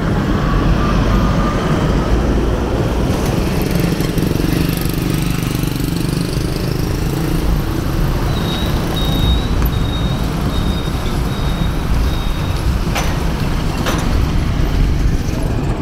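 City street traffic: cars passing close by with engine and tyre noise over a steady low rumble. Midway a faint run of short, evenly spaced high beeps repeats for about four seconds, and two sharp clicks follow near the end.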